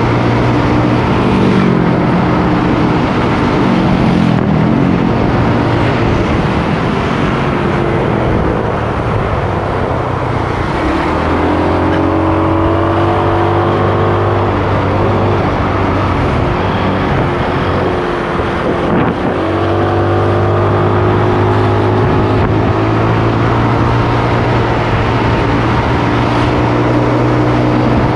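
Motorcycle engine running under way, with wind noise over the microphone. Its pitch drops about ten seconds in and climbs back a little before twenty seconds.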